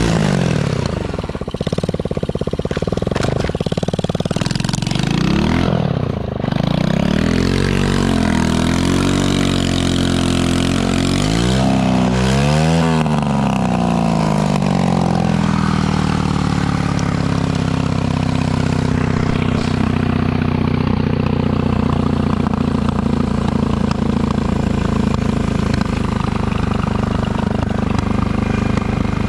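Small 110cc single-cylinder engine of a Chinese ATV, revved up and down over and over in the first half, then held steady at high revs for the rest of the time.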